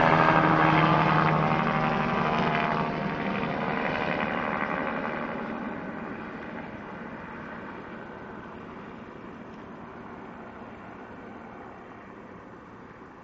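Helicopter moving away, its rotor and engine sound fading steadily from loud to faint.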